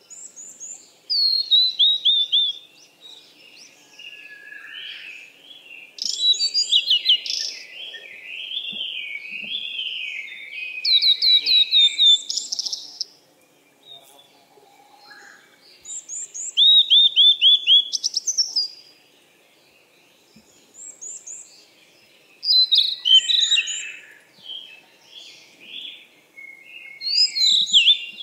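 Songbirds singing: bursts of quick, high chirps and trills of falling notes come every few seconds, with a lower warbling song in between.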